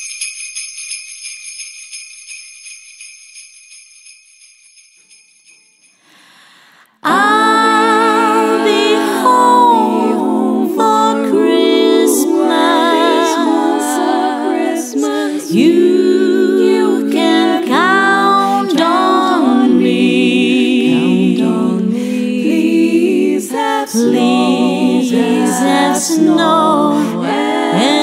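Small bells jingling and dying away over about six seconds. About seven seconds in, a female a cappella group starts singing in close harmony, and the singing carries on to the end.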